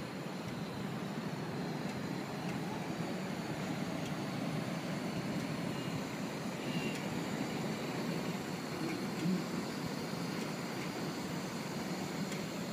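Steady low rumble of city traffic rising from the streets far below a drifting hot air balloon.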